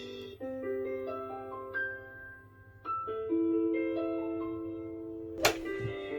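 Gentle piano melody of single notes struck one after another and left to ring. About five and a half seconds in comes one sharp click, followed by a brief low thump.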